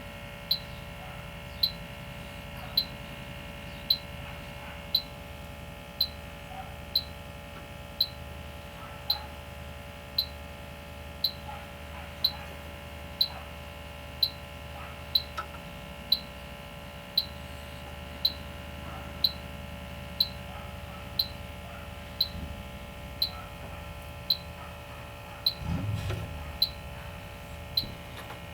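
Electronic refrigerant leak detector ticking at a steady pace of about one sharp high beep a second, over its steady hum. The rate does not speed up, so it is not alarming on a leak. A brief low thump comes near the end.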